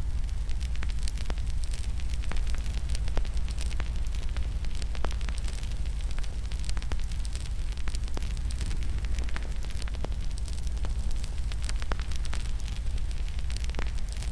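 Wood fire in a fireplace crackling: a steady low rumble of burning with many irregular sharp pops and snaps throughout.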